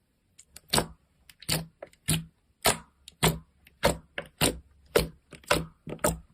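Slime being squeezed and poked, making a regular series of sharp clicks, a little under two a second, with fainter clicks in between.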